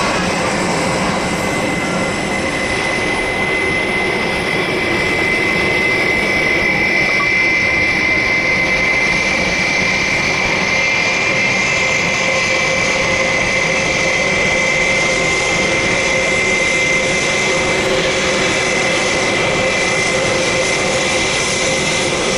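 Boeing 787-8's General Electric GEnx turbofan engines at takeoff thrust as the airliner climbs away: a loud, steady jet roar with a high whine held through it.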